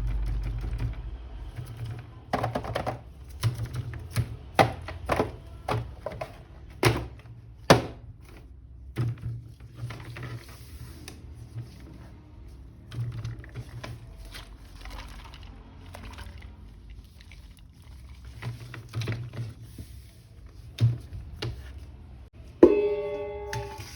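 Plastic toy figures and packaging being handled: an irregular series of sharp clicks and knocks. Near the end a single ringing tone sounds and fades over about a second.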